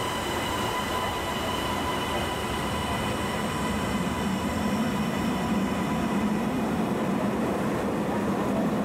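A JR Hokkaido KiHa 150 diesel railcar pulling out of the station on the adjacent track, its engine running and wheels rolling past at low speed, with a steady rumble that grows stronger partway through.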